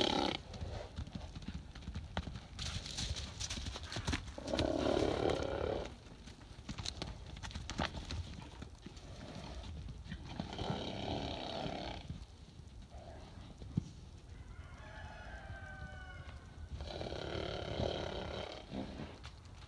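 Horses calling out four times, each call a second or two long, one of them falling in pitch. Scattered hoofbeats on packed dirt come between the calls.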